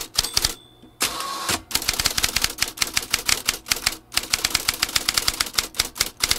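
Typewriter sound effect: rapid mechanical key clacks in bursts, broken about a second in by a short ring and a half-second sliding whir. The clacks stop abruptly at the end.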